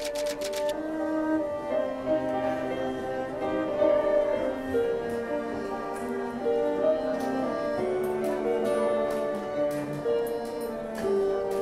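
Cello and violin playing a slow, bowed instrumental introduction to a Romanian Christian hymn: long held notes moving in a gentle melody. A quick run of clicks sounds in the first half second.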